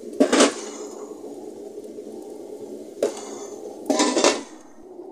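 Stainless steel pot lid clattering and clanking against the rim of a steamer pot, once about a quarter second in, again near three seconds, and in a short burst around four seconds as it is set back on. A steady low rush from the steaming pot runs underneath.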